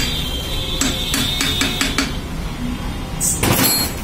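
Metal gearbox parts clinking as the gear cluster is handled in the open case: a sharp click with a high metallic ring, then a quick run of light taps. Near the end, a brief rustle.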